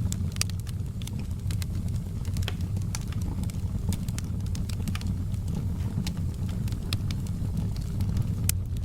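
Wood fire in a fireplace crackling: frequent sharp, irregular pops and snaps over a steady low rumble of the burning fire.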